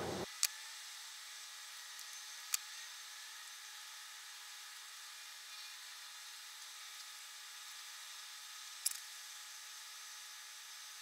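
Faint steady hiss with three short, sharp clicks from small hand tools and wires being handled on a workbench: one about half a second in, one at about two and a half seconds, and one near the nine-second mark.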